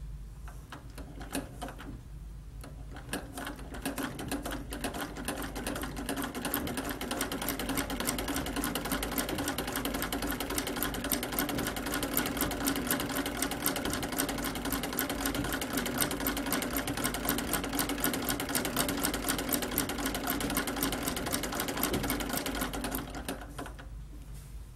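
Vintage sewing machine stitching a hem through a hemmer foot: a few slow single stitches at first, then speeding up to a steady fast run of stitching with a steady hum, which stops shortly before the end.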